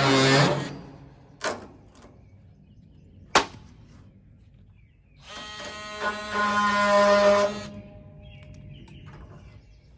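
A cordless power tool's motor whining as it runs down in the first second, then two sharp knocks, then a second steady run of the motor for about two seconds.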